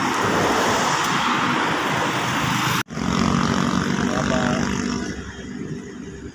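Highway traffic passing close by: a minivan drives past with tyre and engine noise. After a sudden cut about three seconds in, a steadier engine hum continues and grows quieter.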